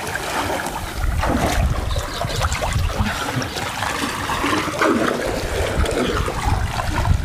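Water splashing and churning as a swimmer strokes across a well, with a low rumble underneath.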